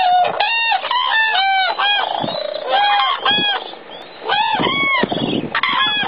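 A flock of common cranes calling: many loud calls overlapping one another in quick succession, with a brief lull about four seconds in.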